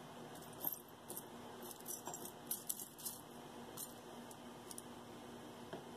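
Small metal jewelry pieces clinking and rattling faintly, in scattered light clicks, as they are handled and sorted.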